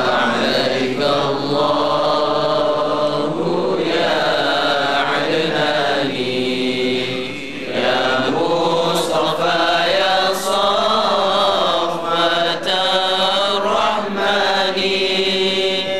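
Background vocal music: a group of voices singing long, drawn-out notes in a chant-like style.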